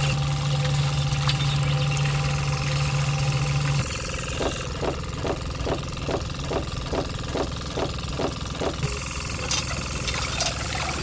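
A small motor running: a steady low hum for about the first four seconds, then slow, even chugging at about three beats a second, then a few light clicks near the end.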